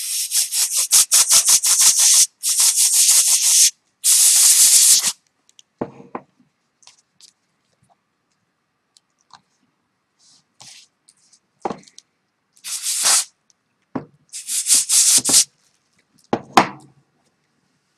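Dry, scratchy scrubbing of a brush pen against paper: quick back-and-forth strokes, about six a second, in the first two seconds, then longer rubbing passes until about five seconds in, and two more bursts of rubbing later on. A few light knocks, and one sharper knock near the end.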